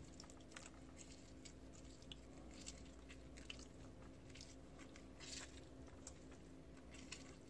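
Faint wet squishing and crackling of a lime being squeezed by hand over raw meat, in short bursts, over a low steady hum.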